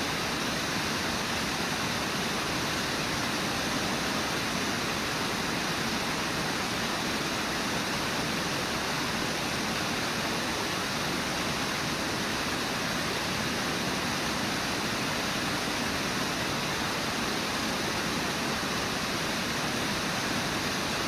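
Water pouring over Brooks Falls, rushing steadily and evenly.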